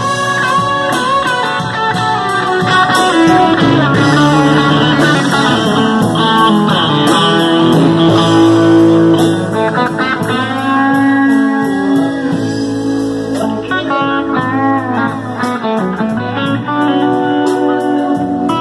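Live band music led by two electric guitars played through small amplifiers, with a steady run of sharp hits keeping the beat.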